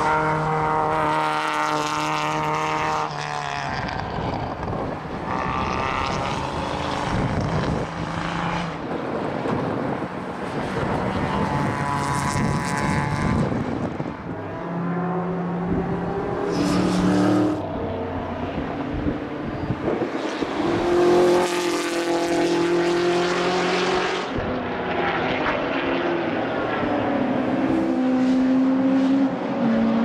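Historic race cars passing one after another on a circuit at racing speed, their engines revving hard and rising in steps as they shift up through the gears.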